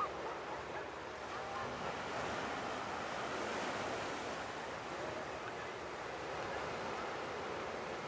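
Atlantic surf washing onto a sandy beach: a steady, even rush of breaking waves.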